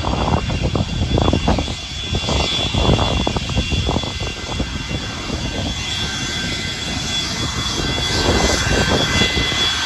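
Jet airliner engines running with a steady high-pitched whine over a broad rush, while gusts of wind buffet the microphone, heaviest in the first few seconds.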